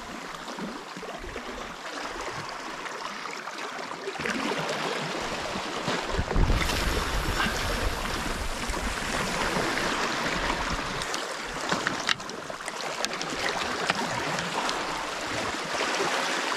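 Sea water washing and swirling over shore rocks as the tide floods in: a steady rushing, with a louder low surge about six seconds in.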